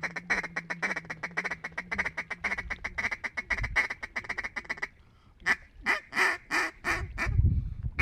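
Duck quacking: a fast, even chatter of short quacks, then after a brief pause a slower series of about eight louder quacks.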